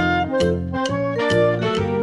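Upbeat background music with a steady beat and keyboard melody.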